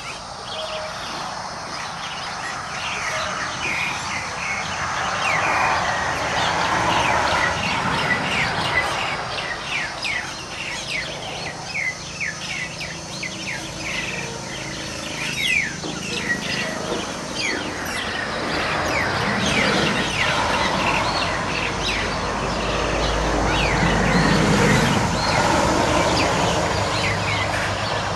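Myna birds calling in a rapid, continuous run of short, sharp chirps, over a steady rushing background noise.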